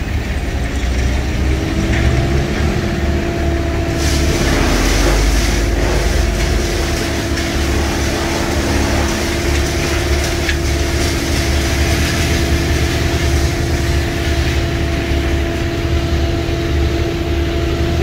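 A bucket truck's engine running steadily, with a steady whine that sets in about a second in and holds on.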